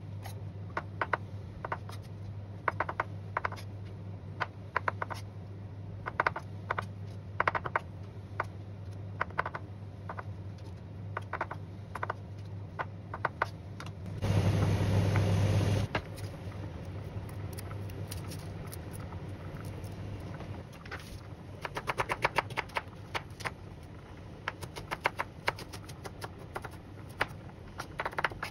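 Chef's knife cutting on a bamboo cutting board, first mushrooms and then an onion: scattered knocks of the blade on the wood, turning into quick steady chopping near the end, over a steady low hum. About halfway through, a short rushing noise lasts a second or two.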